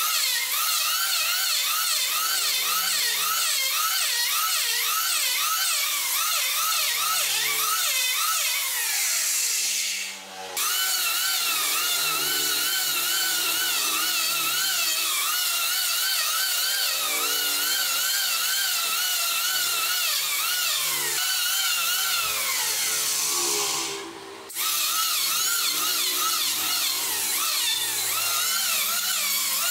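Electric hand planer running, shaving a wooden railing piece. Its motor whine sags and recovers in pitch over and over as the blades bite on each pass, and twice drops away briefly.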